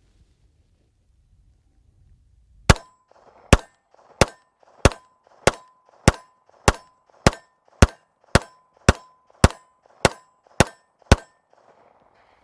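A Walther PPQ M2 Q4 TAC 9mm pistol fired in a steady string of fifteen shots, a little under two a second, starting about three seconds in. A steady ringing tone hangs under the string.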